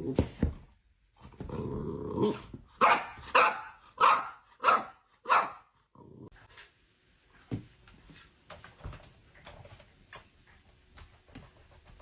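A dog growling, then barking about five times in quick succession, followed by faint scattered ticks.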